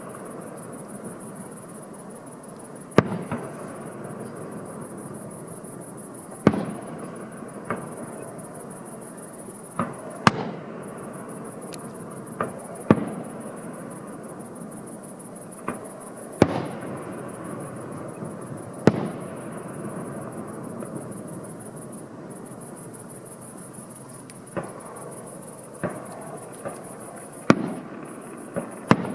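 Fireworks display: aerial shells bursting in sharp bangs, irregularly every one to four seconds and sometimes two in quick succession, each with a short echoing tail, over a steady background hiss.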